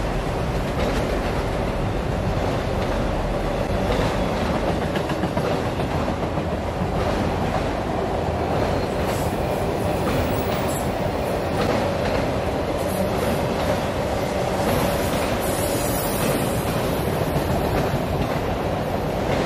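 A long freight train of autorack cars rolling past at speed: a steady rumble of steel wheels on the rails, with light clicking as the wheels pass over rail joints.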